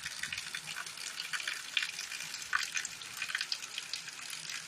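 Rain falling: a steady hiss with many separate drops splashing sharply on surfaces.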